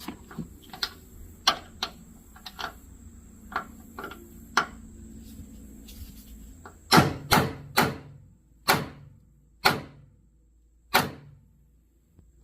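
Light clicking and clinking of tools, then a run of about seven loud, sharp knocks with short ringing tails, the first few close together, then about a second apart: an RPT extraction socket being hammered onto a badly damaged Torx T30 fastener so it bites.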